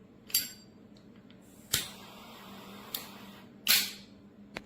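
A series of five sharp clicks, roughly a second apart, some followed by a brief hiss.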